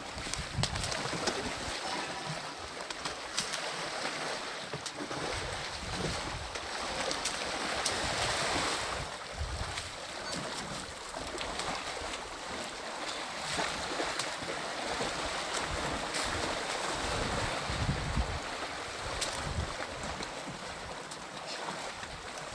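Muddy water splashing and sloshing as African elephants wade and wallow in a waterhole, with wind buffeting the microphone in irregular low gusts.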